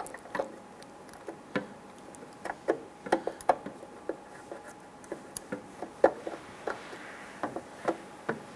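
Irregular light clicks and plastic taps as a bulb socket and its wiring harness are handled and fitted into the back of a headlight housing.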